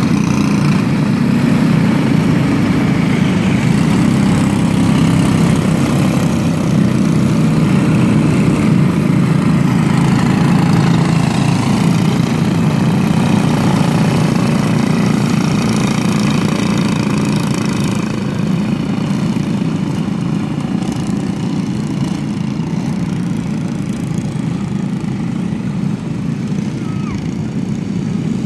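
A pack of micro stock racing karts running together on an asphalt track, their small engines making a steady drone. It gets a little quieter from about eighteen seconds in as the pack moves away.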